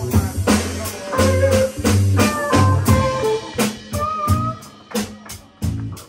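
Live band playing: an electric guitar plays a single-note lead with slightly bent notes over bass guitar and a drum kit keeping a steady beat.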